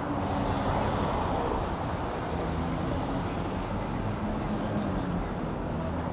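City street ambience: steady traffic noise with indistinct voices of passers-by.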